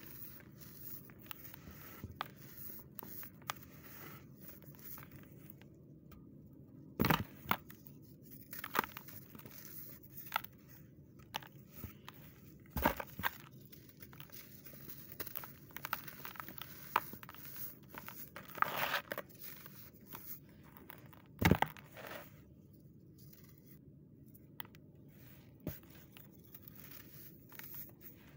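Dry sand being crumbled by hand into a plastic tub: irregular soft crackles and sifting, with several louder crunches as lumps break apart, over a steady low hum.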